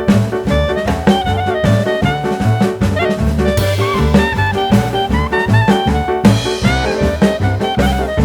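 Upbeat jazz or swing music with brass or saxophone lines over a steady drum-kit beat.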